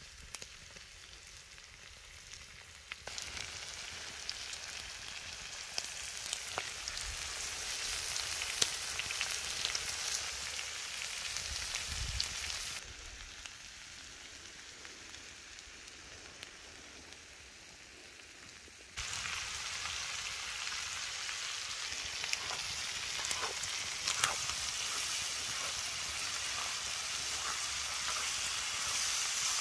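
Lamb offal, potatoes and onions sizzling in a saj pan over a wood fire. The sizzle steps abruptly louder and quieter several times. In the last part wooden spatulas stirring the food make scattered clicks.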